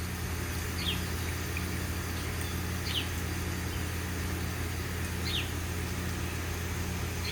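Rain falling over a steady low hum, with a bird repeating a short, high, falling chirp about every two seconds.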